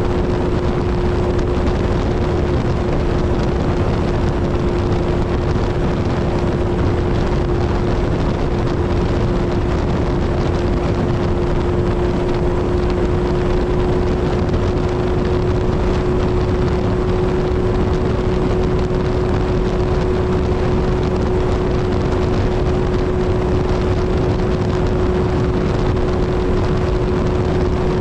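Kawasaki Z1000's inline-four engine and exhaust running at a steady highway cruise, holding one unchanging note over heavy wind rush.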